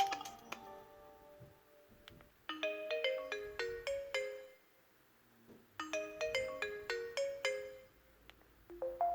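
Alcatel SmartFlip flip phone playing one of its ringtones: a short melody, a quick run of ringing notes, heard twice with a second-long pause between. A different ringtone begins just before the end.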